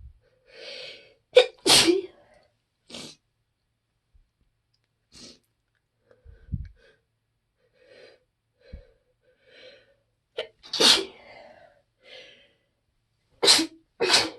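A person sneezing hard several times: a double sneeze near the start, one after a long pause, and two in quick succession near the end, with quiet sniffs and catching breaths in between. These are allergy sneezes, which the sneezer blames on the trees outside.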